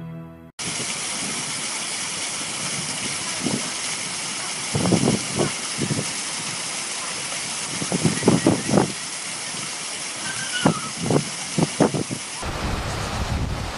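Rushing water pouring and churning along a concrete wall, a steady hiss-like rush, with short sharp sounds breaking in over it several times in small clusters. Near the end the sound changes to a deeper rush with wind on the microphone.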